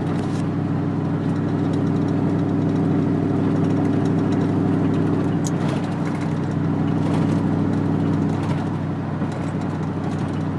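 Chevrolet Silverado's 4.8-litre V8 droning steadily at highway cruise, heard from inside the cab with tyre and road noise.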